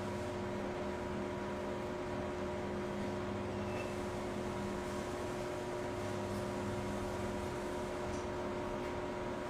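Steady hum and hiss with several fixed tones, unchanging throughout: room noise.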